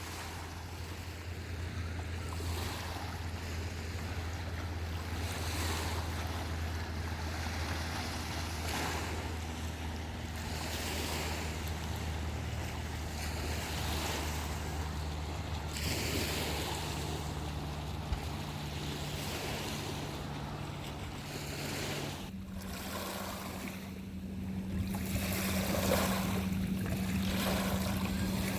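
Small waves washing onto a rocky lakeshore, each wash swelling and fading every few seconds. Under them runs a steady low hum that shifts up in pitch about two-thirds of the way through.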